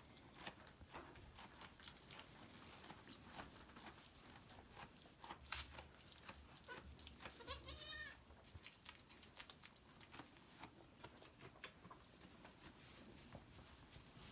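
A newborn goat kid gives one short, high-pitched bleat about seven seconds in, over faint scattered rustling and tapping, with a single knock shortly before the bleat.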